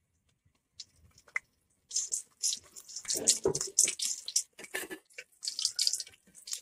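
Whole masala-coated fish shallow-frying in hot oil in a pan: the oil crackles and pops irregularly, starting about two seconds in.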